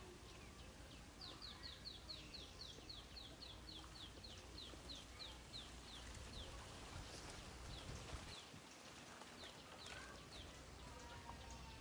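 A bird calling faintly: a run of about twenty short, high notes, each sliding down, starting quick and slowing, then a few scattered notes later.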